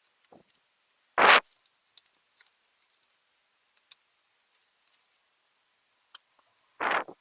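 Two short, loud handling noises, about a second in and near the end, with a few faint clicks between, as ThinkPad T420 laptop parts are worked on during disassembly.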